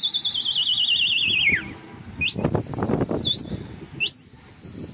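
Loud, shrill human whistling in three blasts. The first is long and warbling and sags slightly in pitch. The next two are shorter and steady, each ending with a quick upward flick in pitch.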